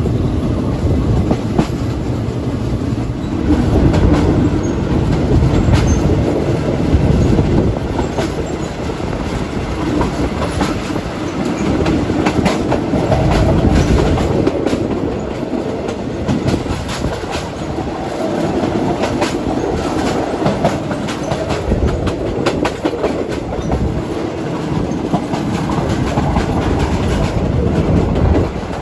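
Passenger train wheels running on the rails, a continuous rumble with scattered clicks as the wheels pass over rail joints, heard from an open window of a moving third-class carriage.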